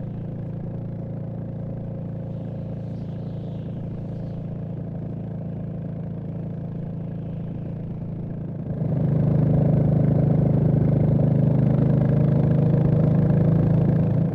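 Royal Enfield Classic 350's single-cylinder engine running at a steady, even pitch. It gets markedly louder about nine seconds in.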